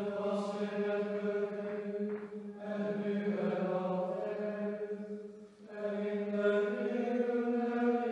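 Male voices chanting in unison on a mostly steady reciting tone, in long held phrases with short breath pauses, the pitch stepping up slightly near the end: liturgical plainchant.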